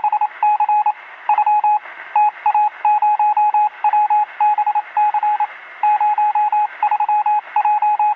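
Rapid electronic beeps at one pitch, in irregular groups of short and longer tones over a faint hiss, with a thin, telephone-like sound.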